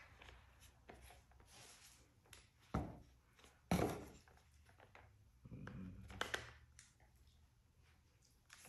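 Handling noise from unboxing an airgun and its parts: light rustling with a few sharp knocks and clicks, the loudest about halfway through.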